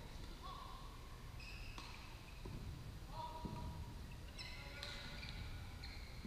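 Badminton play on several courts of a large hall: players' shoes squeaking repeatedly on the court mats, with a few faint racket strikes on the shuttlecock, over a low hall rumble.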